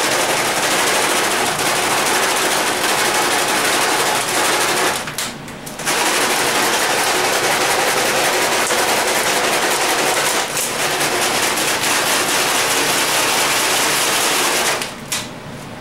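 Small steel valve keepers rattling rapidly inside a plastic water bottle with cleaning liquid, shaken hard by hand as a makeshift parts tumbler to clean them. A dense, continuous clatter that pauses for about a second about five seconds in, then runs on until it stops shortly before the end.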